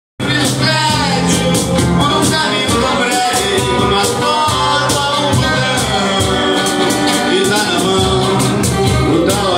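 Live acoustic band: a man singing over strummed acoustic guitars, with a steady strummed rhythm throughout.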